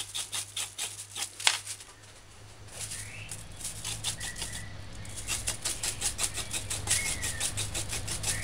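Kitchen knife scraping the skin off a raw carrot in quick repeated strokes, about five a second, over a plastic bag, with a short pause about two seconds in.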